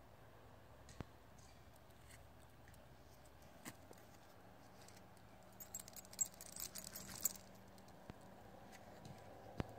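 Small pieces of metal jingling for about a second and a half, a little past the middle, with a few single light clicks before and after, against near silence.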